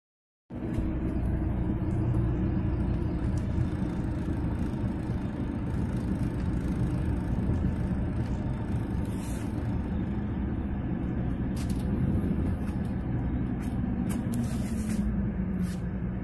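Steady low rumble of road and engine noise inside a moving car's cabin, starting about half a second in, with a few faint clicks.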